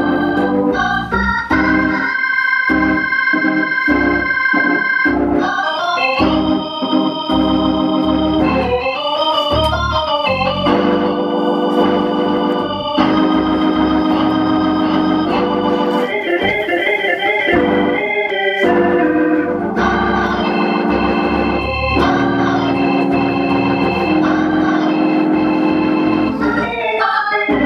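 Organ music: sustained chords that change every few seconds, with a wavering tremolo in places.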